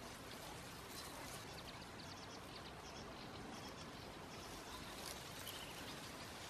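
Faint outdoor wetland ambience: a steady noise haze, with a quick run of faint high ticking chirps from about one and a half to three seconds in and a short high note at about five and a half seconds.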